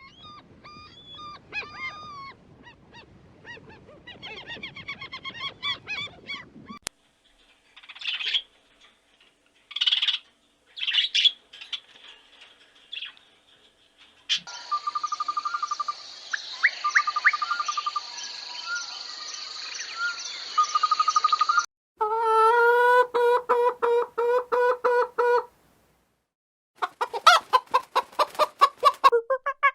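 Domestic fowl calling in a run of short clips: chicken clucks and chirps, then bursts of rapid pulsed calls in the second half.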